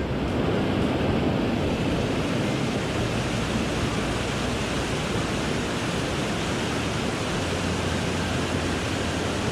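Steady rush of water from a mountain stream running high after rain, at a constant level throughout.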